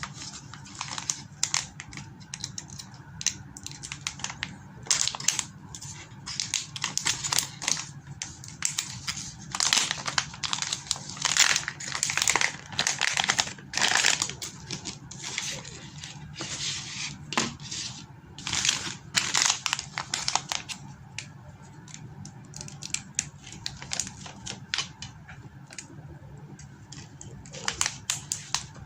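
Plastic packaging crinkling and tearing in irregular bursts as a part is unwrapped by hand, over a low steady hum.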